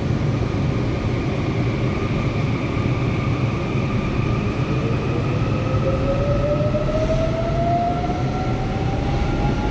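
Seoul Line 4 subway train with a Woojin Industrial IGBT VVVF inverter, running with a heavy low rumble and steady whine. From about halfway through, a traction motor tone rises smoothly in pitch as the train picks up speed.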